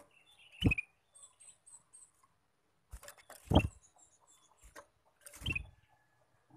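Caged male ruby-throated bulbul (kutilang emas) giving short sharp chirps and a quick run of high notes, among three louder bumps, near the start, the middle and the end, from the bird moving in its wooden cage.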